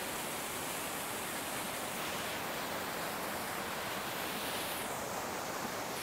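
Waterfall and the stream below it: a steady, even rush of falling water.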